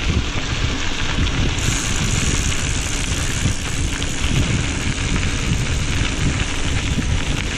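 Single-speed mountain bike rolling along a gravel and dirt path: a steady crunch and rumble of tyres on loose ground, mixed with wind buffeting the handlebar-mounted camera's microphone.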